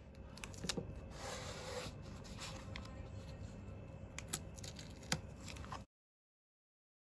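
Faint handling noise of hands working at a canvas and a paint tube on a wooden table, with a few light clicks and taps. The sound cuts off abruptly about six seconds in.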